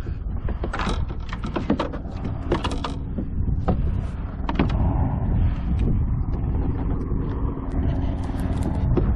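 Fishing reel being worked as a fish is brought up beside the kayak: mechanical clicking and a steady whirr from about halfway through, over wind rumble on the microphone.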